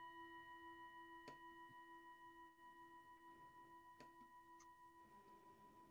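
A singing bowl ringing out after a single strike: a faint, steady, wavering tone that slowly fades, with a few faint clicks about a second in and near four seconds.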